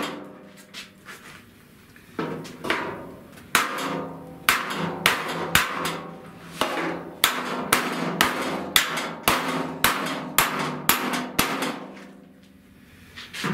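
Body hammer striking the sheet-steel lower fender of a 1970 Buick Wildcat, hammering out dents. A few light taps come first, then from about two seconds in a steady run of sharp metallic blows, roughly two a second, each ringing briefly. They stop shortly before the end.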